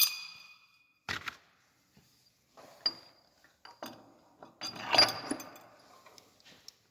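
Small steel parts clinking and ringing as they are handled: a spacer washer and the crankshaft-seal installer being fitted together. A sharp ringing clink at the start, a knock about a second in, and more clinks near three and five seconds.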